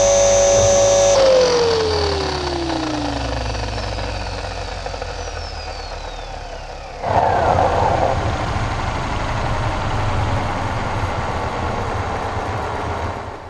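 Electric RC helicopter's brushless motor and rotor head whining steadily, then spooling down after landing, the whine falling in pitch from about a second in as the rotor winds down. About seven seconds in, a louder rushing noise comes in suddenly over it.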